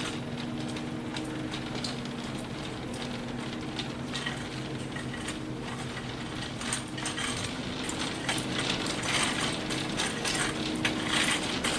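Irregular light clicking and rattling over a steady low hum, getting busier about halfway through.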